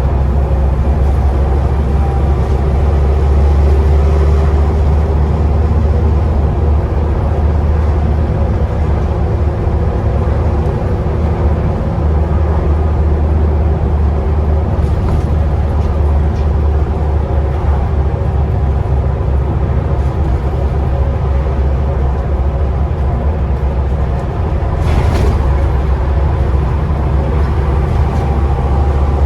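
Scania Enviro 400 double-decker bus's diesel engine heard from inside the lower deck: a steady low drone with a turbocharger whistle over it. A short hiss about 25 seconds in.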